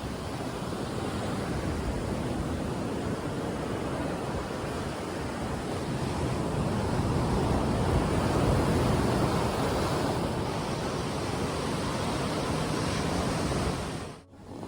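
Mediterranean surf washing onto the beach: a steady rushing of waves that swells to its loudest about halfway through, with some wind on the microphone. The sound drops out abruptly for a moment near the end.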